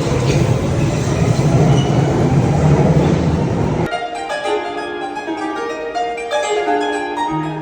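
A train running with a loud, steady rumble, most likely a London Underground train. About four seconds in, it cuts off suddenly and a plucked string instrument, guitar-like, plays a melody of clear separate notes.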